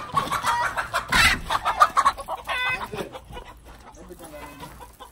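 Chickens clucking, a run of short calls that is loudest in the first three seconds and fades after.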